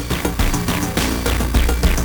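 Electronic outro music with a steady beat and a heavy bass line.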